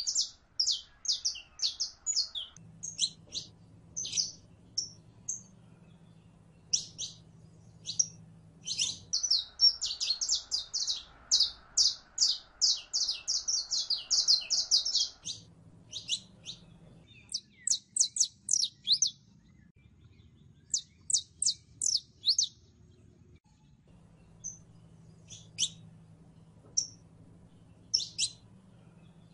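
Saffron finch (Sicalis flaveola) singing: fast runs of short, high chipping notes, the longest run in the middle, with single notes scattered between.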